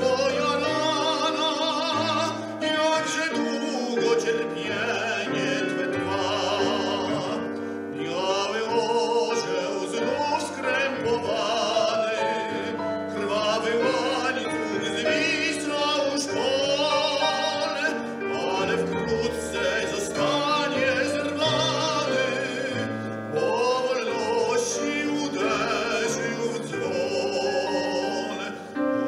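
A male classical voice singing in operatic style with strong vibrato, accompanied by piano.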